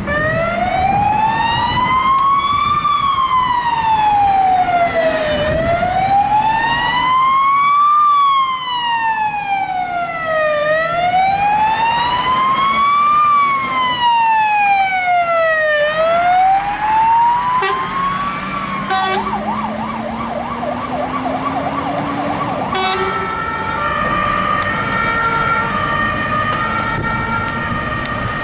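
Fire engine's electronic siren on an emergency run: a slow wail rising and falling about every five seconds, four times over, then switched to a fast warble for a few seconds with a low tone rising beneath it, then to a stepped pattern of alternating tones near the end.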